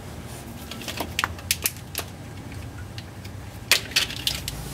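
Hands handling a wiring connector and a power probe's test-lead clip: a few light scattered clicks and rattles, a cluster about a second in and another near the end.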